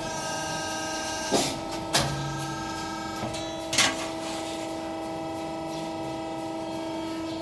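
A 100-ton hydraulic press brake running with a steady hum from its pump and motor, with three sharp clunks about one and a half, two and four seconds in as it bends sheet metal.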